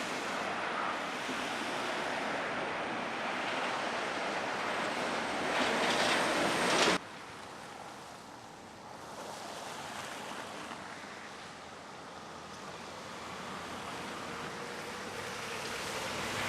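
Steady rushing noise of wind and traffic on wet, snowy roads in heavy snowfall. It swells about six seconds in, cuts off suddenly about a second later, and goes on quieter.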